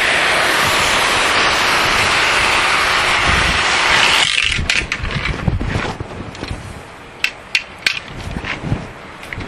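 High-pressure washer spraying a truck: a loud steady hiss that cuts off about four seconds in, leaving a low rumble and a few sharp clicks.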